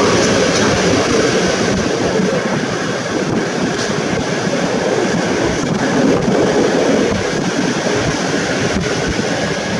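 Passenger train coach rolling along the track, heard at the coach window: a steady rush of wheel-on-rail and running noise, with a few faint clicks.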